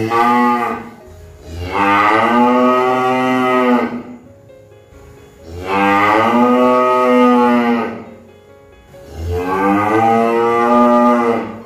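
A cow mooing. One call ends just under a second in, then three long, evenly spaced moos follow, each about two seconds.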